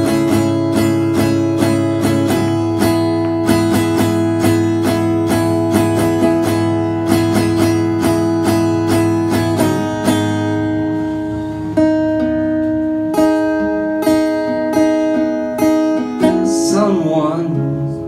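Acoustic guitar strummed live: fast, even chord strumming that thins after about ten seconds to slower, spaced strums.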